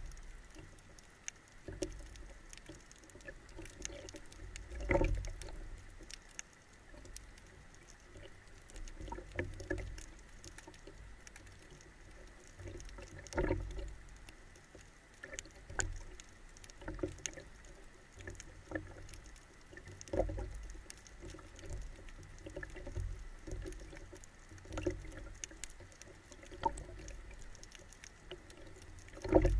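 Underwater water noise heard through a camera mounted on a speargun near the surface: soft, irregular sloshing thumps every few seconds, with small clicks and crackles scattered throughout and a faint steady whine. The strongest thump comes right at the end.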